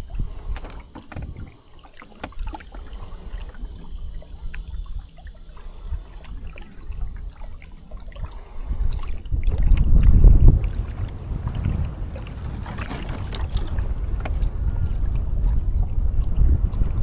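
Wind buffeting the microphone and water splashing and trickling against a sailing kayak's hull, with many small ticks of splashes. A gust swells the low rumble to its loudest about ten seconds in.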